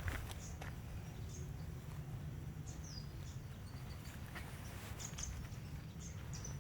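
Short high bird chirps scattered through a steady low outdoor rumble, with a few sharp clicks right at the start.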